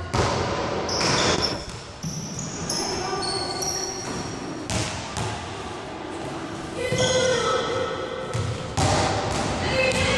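A basketball bouncing and thudding on a hardwood gym floor, with short high-pitched sneaker squeaks scattered among the thuds, in a large echoing hall.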